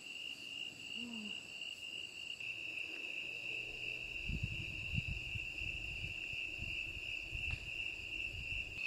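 Chorus of crickets chirping, a steady high trill that keeps laying down a beat. An uneven low rumble joins in about halfway through.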